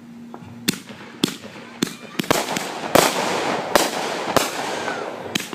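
Fireworks going off: sharp bangs begin about a second in and repeat every half second or so, and from about three seconds in a loud hissing crackle runs under the continuing bangs.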